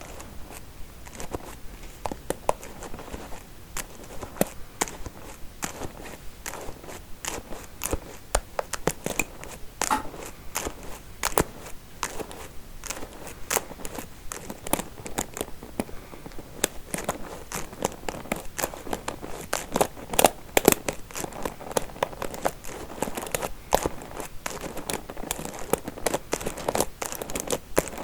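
Combs handled close to the microphone for ASMR: a dense, irregular stream of quick clicks and crackles from the comb teeth.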